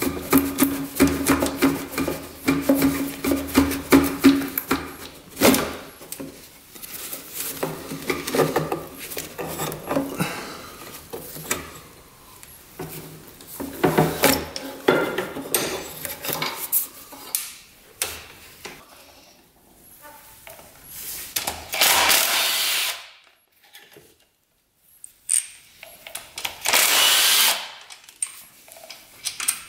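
A handheld power tool runs steadily for about five seconds, followed by scattered clinks and knocks of metal tools and parts during engine top-end disassembly. Near the end there are two short hissing rushes.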